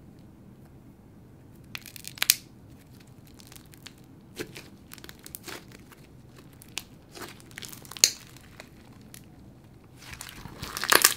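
Thick white-glue slime with marshmallow foam beads and pom-poms being stretched, squished and folded by hand, giving scattered sticky air-bubble pops and crackles, with a denser run of squishing about ten seconds in.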